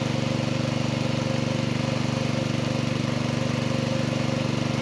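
A small engine running steadily at one constant speed, with a fast even beat and no change in pitch.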